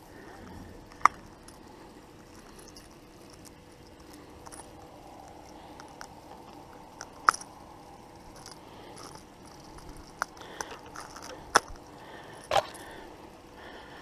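Scattered sharp clicks and taps, four of them louder than the rest, over a quiet steady background.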